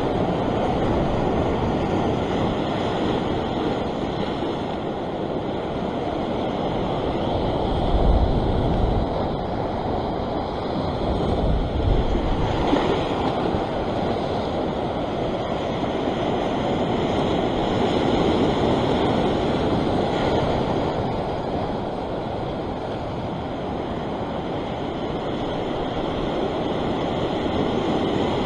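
Sea surf washing over a rock ledge: a steady rush of breaking waves and foam, swelling and easing. Wind buffets the microphone, with a couple of low gusts about a third of the way in.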